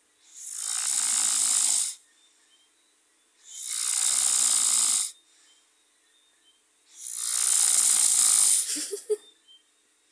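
Snoring: three long, hissing snores about three and a half seconds apart, with quiet pauses between breaths.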